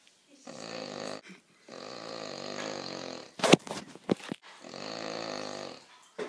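A sleeping dog snoring loudly: three long, deep snores, with a few sharp clicks between the second and third that are the loudest sound.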